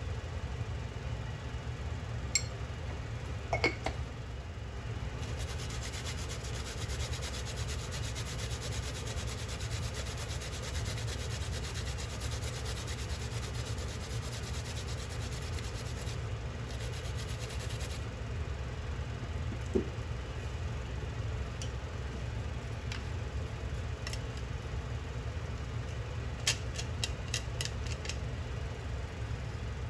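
Unpeeled ginger root rubbed over a flat metal hand grater, a fast, even rasping from about five seconds in until about eighteen seconds, over a steady low hum. A few sharp metallic clicks and taps come near the start and in a quick run near the end.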